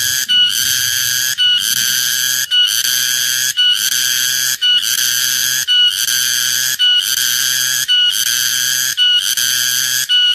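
Cicada calling very loudly in a regular series of buzzing phrases, about one a second, each cut off by a brief gap.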